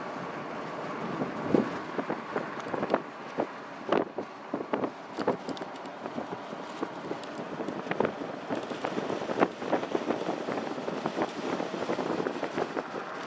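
Steady road and wind noise heard from inside a moving vehicle, with irregular short knocks and rattles throughout.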